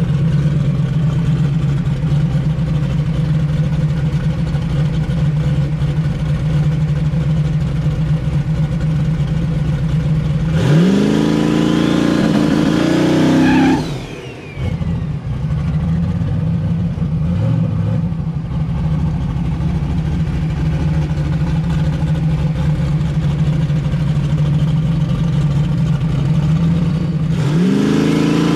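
Fox-body Mustang drag car's engine running steadily, then revving up in a rising sweep about ten seconds in that cuts off sharply three seconds later. It settles back to a steady run, and near the end it begins to rev up again.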